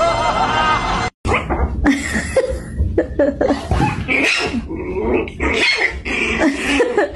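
Music until a sudden cut about a second in, then an animal making short growly, whining noises one after another in quick irregular bursts, which fits a dog.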